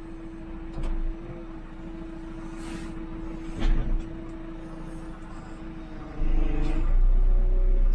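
JCB 3CX backhoe loader's diesel engine running, heard from inside the cab as a low rumble with a steady whine. About six seconds in it gets louder and the whine's pitch sags, as the machine takes load working its hydraulics. A couple of sharp knocks, the louder one about three and a half seconds in.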